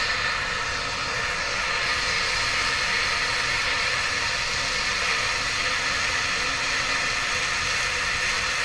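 Handheld blowtorch burning with a steady hiss as its flame is held on a water-filled latex balloon, which does not pop.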